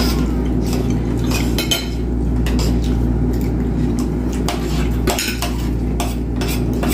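Forks and spoons clinking and scraping on plates as several people eat, in scattered light clicks over a steady low hum.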